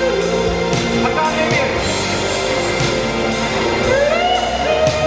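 Electric guitar lead from a Stratocaster-style guitar, holding sustained notes that are bent up in pitch, over a rock backing with drums and cymbals keeping a steady beat.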